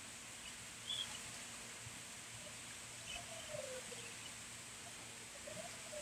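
Faint bird calls over a steady hiss: a few short high chirps about a second in and again about three seconds in, and low calls that fall in pitch around three to four seconds in and again near the end.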